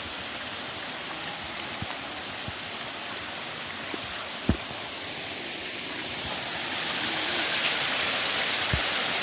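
Small waterfall and stream rushing steadily, growing louder over the second half. A few short low knocks come through, the sharpest about halfway.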